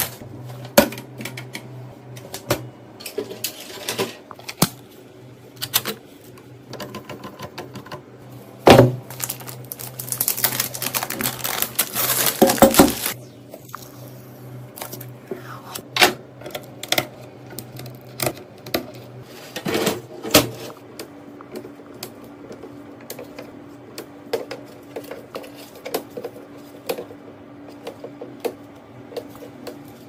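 Handling of computer parts: scattered clicks and light knocks of plastic and metal pieces being set down and fitted, with about three seconds of dense rustling near the middle, over a faint steady hum.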